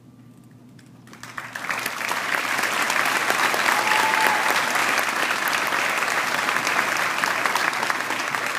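Large crowd applauding, starting about a second in and building quickly to sustained clapping.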